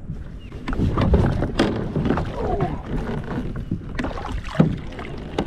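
Kayak being paddled: paddle strokes splashing in the water, with a few sharp knocks of the paddle against the kayak.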